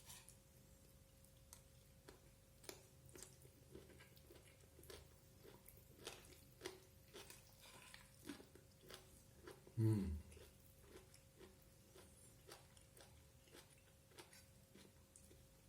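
A person eating with the mouth close to the microphone: quiet, irregular chewing and lip-smacking clicks. About ten seconds in comes one short vocal sound falling in pitch, the loudest moment.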